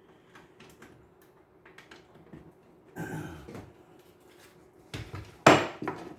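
Scattered light clicks and knocks of objects being handled, with a cluster about three seconds in and the loudest knock about five and a half seconds in.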